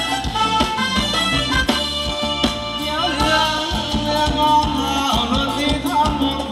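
Loud Thai ramwong dance music with a steady drum beat and held melody notes.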